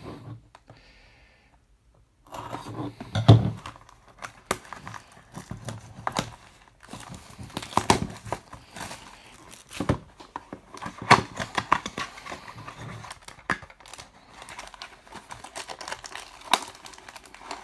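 A cardboard trading-card mini box being opened and its wrapped card packs handled: crinkling and rustling with many sharp clicks and taps. It starts after a short pause about two seconds in.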